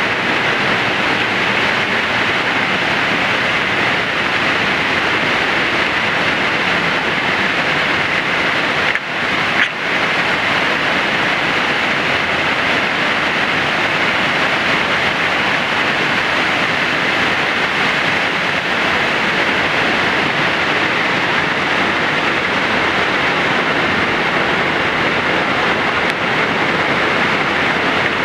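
Steady rushing of Eagle Cliff Falls, a tall waterfall plunging into a gorge pool, with the sound cutting out very briefly twice about nine seconds in.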